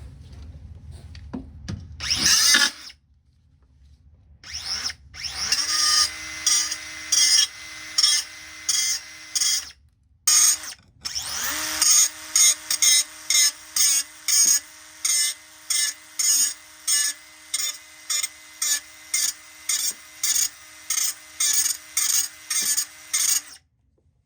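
Angle grinder working sheet steel: a steady motor whine under rhythmic grinding strokes about twice a second, the pitch dipping slightly each time the disc bites. The work breaks off briefly twice before running on, and stops shortly before the end.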